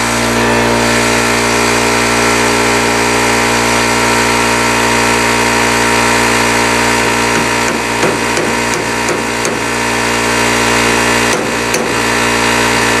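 Air compressor running steadily, and in the second half two runs of metal hammer blows on a carrier bearing that has been cut partway through with a grinder, struck to spread the crack and break it off the differential carrier.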